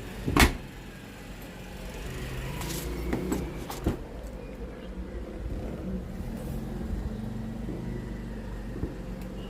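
A sharp plastic click about half a second in, as the dishwasher's detergent dispenser lid is pressed shut over the tablet, then a low steady hum with a few faint handling knocks.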